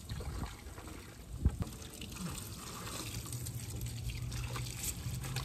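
Water from a garden hose splashing onto a plastic hood trim piece as it is rinsed off, with a single knock about a second and a half in.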